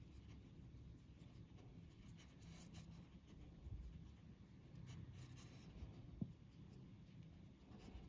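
Very faint scratching and rubbing of fingers handling monofilament fishing line as a knot is tied, over a low room hum, with one soft tap about six seconds in.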